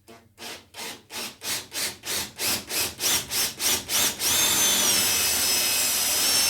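Saw cutting a workpiece with even back-and-forth strokes, about three a second and growing louder, for the first four seconds. Then a power tool runs steadily with a high whine until just after the end.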